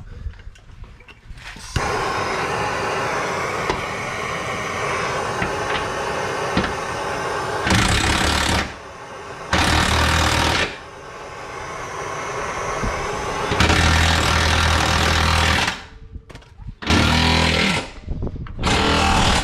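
Heat gun blowing steadily to warm a cooled subframe bushing, broken by several short, louder bursts of a hammering power tool.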